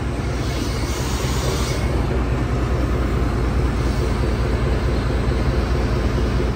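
Foden crane lorry's diesel engine running steadily, powering the truck-mounted crane as it is worked by remote control.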